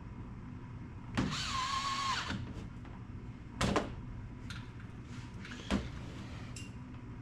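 A small electric motor, like a power tool's, whirs for about a second, its pitch rising and dipping before it holds steady. Several sharp clicks and knocks of tools or metal parts follow, over a steady low background hum.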